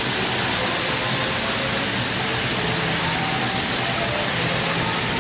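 Water from a small artificial waterfall spilling over rocks into a pool: a steady, loud, hissing splash.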